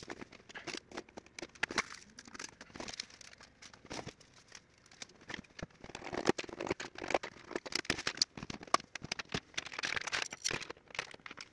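Irregular light clicks, knocks and rustling of hard plastic parts being handled: filament spools and roller tubes being taken out of a clear plastic storage box and set down on a cutting mat.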